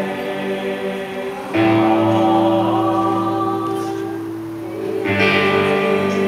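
School choir singing long held chords, changing to a new chord about one and a half seconds in and again about five seconds in.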